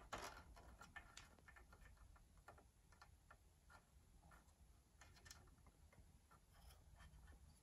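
Faint, irregular small clicks of plastic wire connectors being unplugged and handled on an NEC M300X projector's main circuit board.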